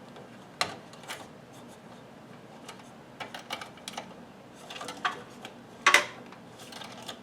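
Scattered light clicks and knocks from hands and tools working at a desktop computer's CPU heatsink to get it off, the loudest knock about six seconds in.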